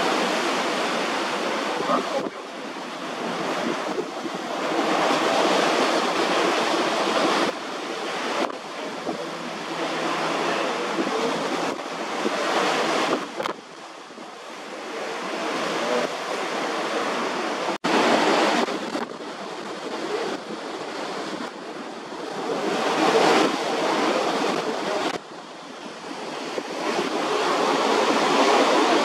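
Wind on the microphone over rushing sea water: a steady noise that swells and fades, with abrupt changes at several points.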